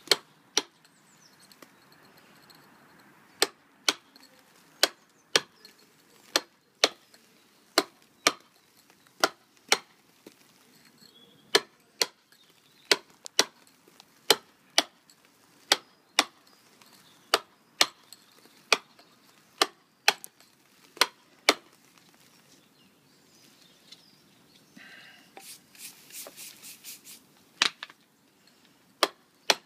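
Mason's tool strikes on a sandstone block, dressing a stugged finish: sharp impacts, often in pairs about half a second apart. A short run of softer rattling fills a pause near the end before the strikes resume.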